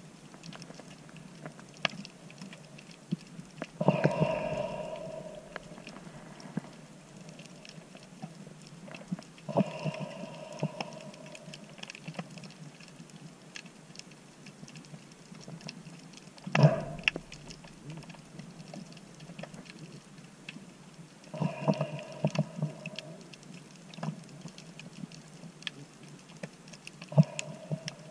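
Underwater ambience: a constant crackle of fine clicks, typical of snapping shrimp on a rocky reef. Every five or six seconds a louder hollow, pitched swell lasts a second or two, and a single sharp knock comes about two thirds of the way through.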